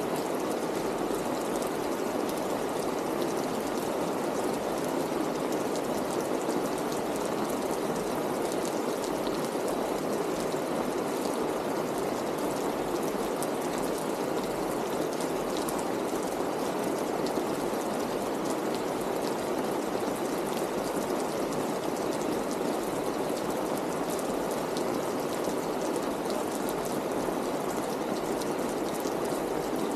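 Steady rain: an even rushing hiss with a fine patter of drops.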